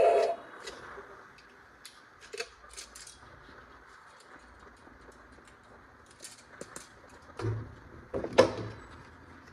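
Small hard plastic parts being handled, giving scattered clicks and light taps, with a few louder knocks near the end. A loud sound cuts off right at the start.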